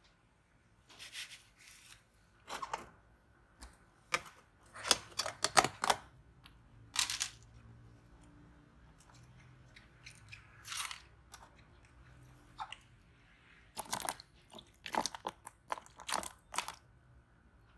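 Thin clear plastic tubs being picked up and handled, crinkling and clattering in irregular bursts, loudest about five seconds in and again near the end.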